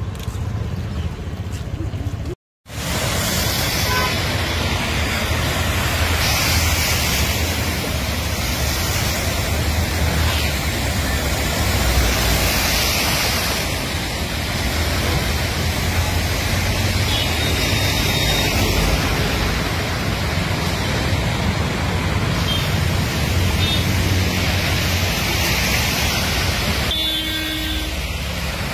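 Cars and motorbikes driving through a flooded road: a steady rushing of tyres through water with engine rumble, swelling as vehicles pass. The sound drops out briefly about two and a half seconds in.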